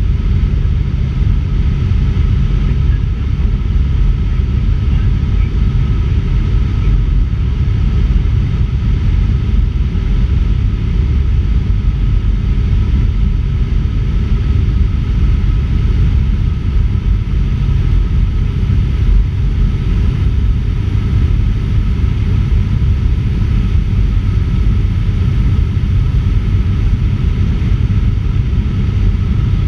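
Cessna 150's four-cylinder Continental O-200 engine and propeller droning steadily in flight, mixed with the rush of wind over a microphone outside under the wing. The sound is a deep, even drone with a faint steady whine above it.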